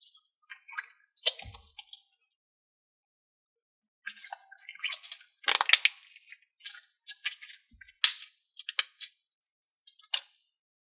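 Slime being squeezed and pulled by hand, giving sticky crackling and popping clicks in irregular bursts with short silences between, the sharpest about a second and a half in, around the middle, and near eight seconds.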